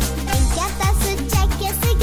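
Upbeat dance music with a steady kick drum at about two beats a second under a wavering melody line.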